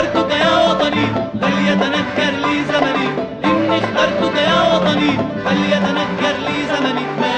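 Arabic song played live by a band, fast plucked strings over a low repeating bass figure.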